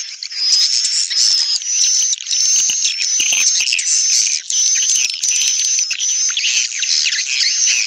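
Recorded swiftlet calls: dense, unbroken high-pitched twittering and chirping from many birds. This is a swiftlet-farming lure track of call sounds (panggil) and roosting sounds (inap), played to draw swiftlets into a nest house.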